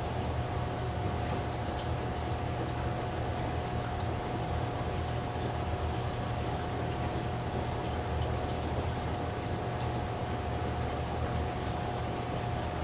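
Steady machine running noise: a low hum and an even hiss with one constant mid-pitched tone over it, unchanging throughout.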